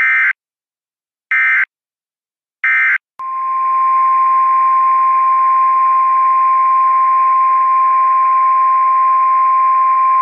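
NOAA Weather Radio alert signal: three short warbling data bursts of the Specific Area Message Encoding header, about a second and a quarter apart, then the steady 1050 Hz warning alarm tone held over radio hiss.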